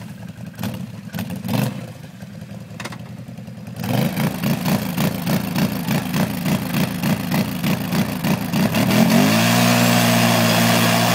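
Quad bike engine ticking over quietly with a few knocks, then from about four seconds in running in a fast, even throbbing, and about nine seconds in revving up and holding high revs as the wheels spin in the mud.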